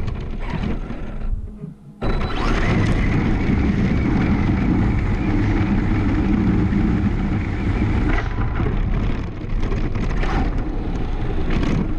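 Electric Arrma Senton RC short-course truck driving fast over grass, heard from a camera mounted on its body: a loud, steady rush of wind, tyre and chassis noise. The sound drops away briefly about a second and a half in, then runs loud and steady, turning rougher with knocks near the end as the truck slows onto a hard path.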